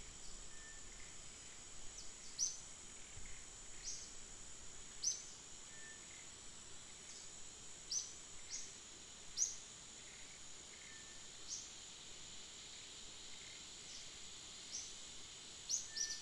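Outdoor ambience: a steady high insect drone with short, high chirps from a bird repeating irregularly, roughly one every second or two.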